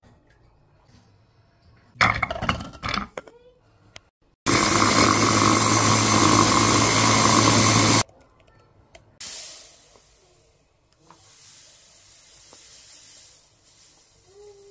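Electric mini food chopper running steadily for about three and a half seconds, chopping fruit, and stopping abruptly. A few seconds of clattering handling come before it.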